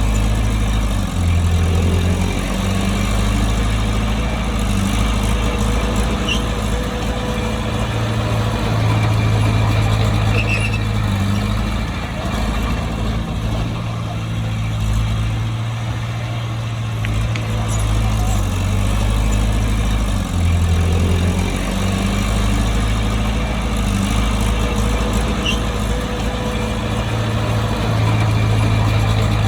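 Bulldozer's diesel engine running hard under changing load, its low note shifting up and down a few times.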